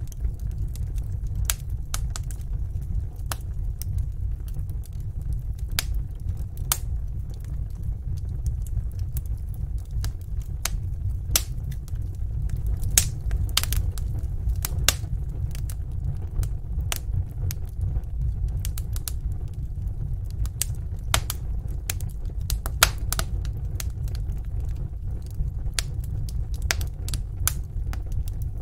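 Wood fire burning in a fireplace, crackling with irregular sharp pops and snaps over a steady low rumble of flames.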